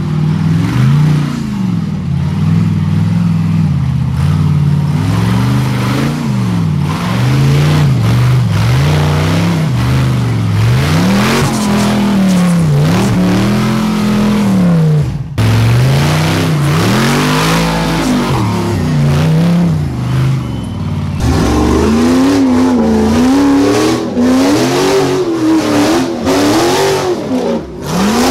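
Ultra4 off-road race buggy engines revving up and falling back again and again while the buggies work through deep mud and ruts. The sound jumps abruptly about halfway through and again about three-quarters through, where it switches to another car.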